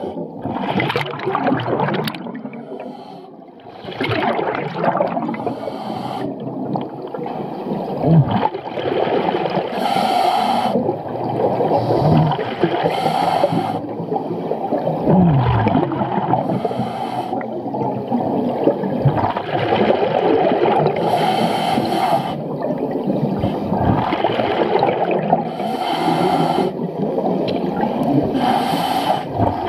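Scuba regulator breathing heard underwater: rushes of exhaled bubbles every few seconds over a steady low rumble, with a few short low falling tones.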